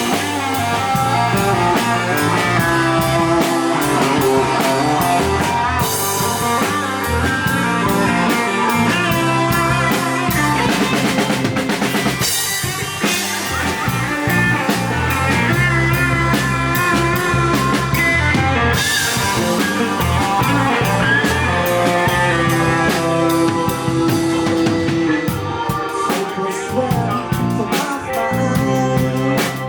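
Live rock band playing, led by a drum kit, with sustained instrument notes and a cymbal crash roughly every six seconds.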